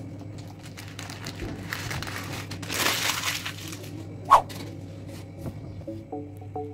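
Handling noises in a kitchen as a freshly unmolded cheesecake is moved about on its wooden board: light clicks, a rustle a little under three seconds in and a short sharp squeak just after four seconds, over a steady low hum. Plucked background music starts near the end.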